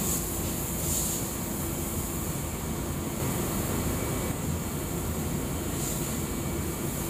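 Automatic spray painting machine and its booth running: a steady rumble with a constant low hum under a hiss of air, which swells briefly about a second in and again near six seconds.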